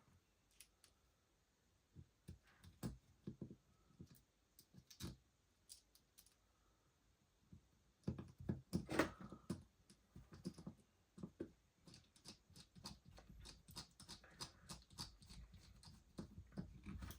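Faint scattered clicks and light knocks of small pistol parts being handled and worked on by hand, with a denser clatter about eight seconds in followed by a run of quick light ticks.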